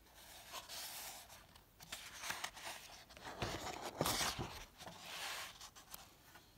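Paper pages of a picture book being turned by hand: a run of rustles and slides, loudest about four seconds in.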